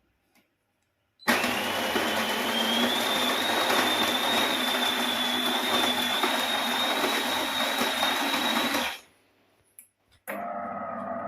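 Built-in coffee grinder of a DeLonghi Eletta Cappuccino Top bean-to-cup machine grinding beans: a loud grinding noise with a steady high whine, starting suddenly and cutting off after about seven and a half seconds. About a second later a quieter, steady machine hum with a few held tones starts up.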